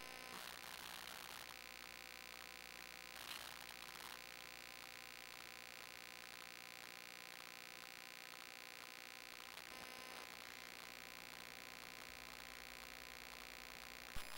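Near silence: a faint steady electrical hum and buzz, with a couple of faint clicks.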